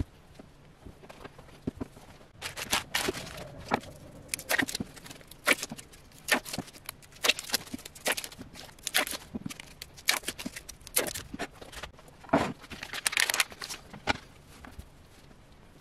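Sped-up food-prep handling sounds: rapid clicks and clacks with bursts of plastic wrapper crinkling and tearing, as string cheese sticks are unwrapped and laid in a dish.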